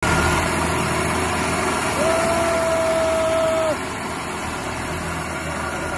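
Diesel engines of two tractors, a John Deere and a red tractor, running together in a tug-of-war pull, mixed with crowd voices. A steady single-pitched tone sounds for nearly two seconds from about two seconds in, and the overall sound drops when it stops.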